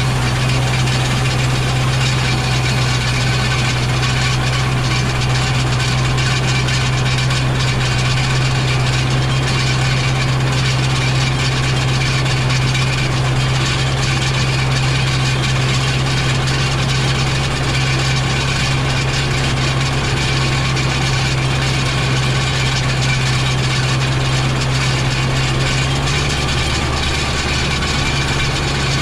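Farm tractor engine running steadily, its speed easing down a little near the end.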